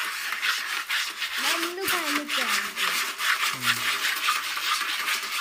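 Cat digging in a litter box, its paws raking through granular litter in a quick run of rasping scratches, several a second.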